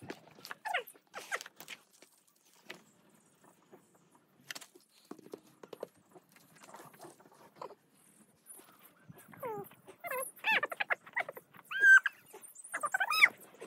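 A dog making high, sliding whining cries in the second half, loudest near the end, after a stretch of faint scattered taps and clicks.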